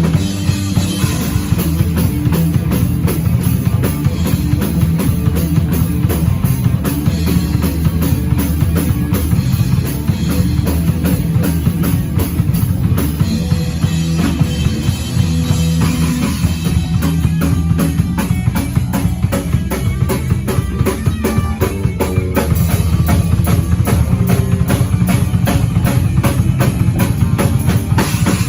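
Instrumental heavy rock music: a drum kit playing a fast, busy beat with a lot of bass drum, over guitar and bass. It gets louder about two thirds of the way through.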